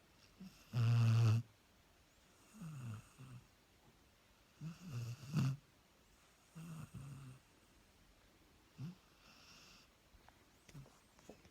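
A dog snoring in its sleep, with a snore about every two seconds. The first, about a second in, is the loudest and longest, with a low pitch. Shorter, softer snores and breaths follow.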